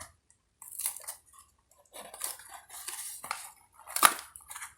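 Packaging of a stock Intel CPU cooler fan being opened by hand: irregular rustling and clattering, with a sharp click about four seconds in.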